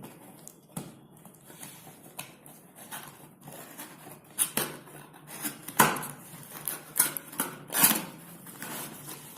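Smartphone retail box and its packaging being handled: light rustling with scattered clicks and taps, and several sharper knocks in the second half.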